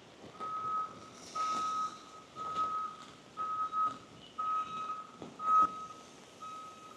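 A truck's reversing alarm beeping, one steady tone about once a second, seven beeps. A sharp knock sounds among the beeps about two-thirds of the way through.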